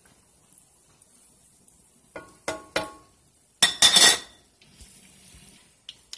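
Corn fritters sizzling softly in hot oil in a skillet, with a metal utensil clinking sharply against cookware three times, then a louder metal clatter about three and a half seconds in, and another small click near the end.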